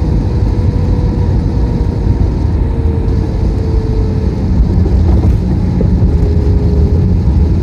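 Steady cabin noise inside an Airbus A321: a loud, even low rumble of engines and airflow, with a faint steady hum above it.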